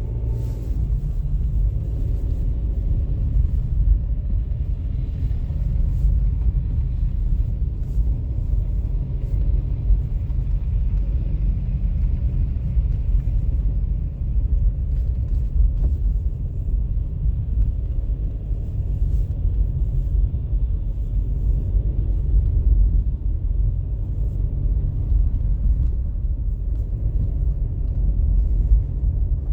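A continuous deep rumble that swells and dips unevenly, with little above it in the higher range.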